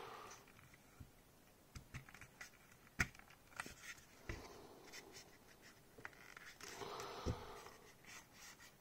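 Faint handling noise of a plastic scale model kit: small clicks and scrapes as a gun part is pressed into the fuselage, with a sharp click about three seconds in and another near the end.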